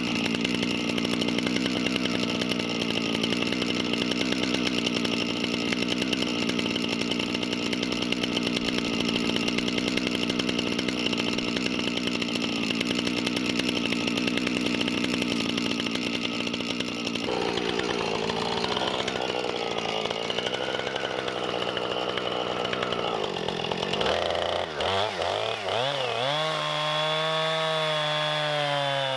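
Chainsaw engine running steadily, its pitch shifting about two-thirds of the way through and wavering up and down near the end.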